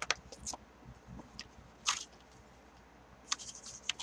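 A plastic DVD case and its paper booklet being handled: scattered small clicks and short rustles, loudest about two seconds in.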